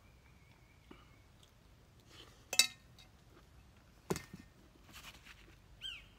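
A spoon clinks sharply against an enamel bowl once, with a brief metallic ring, followed about a second and a half later by a duller knock as the bowl is set down. Light rustling and a short high chirp come near the end.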